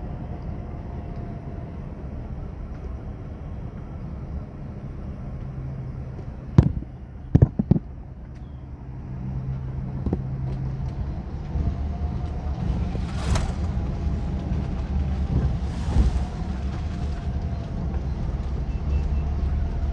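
Car running on the road, heard from inside the cabin: a steady low engine and tyre rumble. A few sharp knocks come between about six and eight seconds in. Later two swells of noise pass as oncoming vehicles go by.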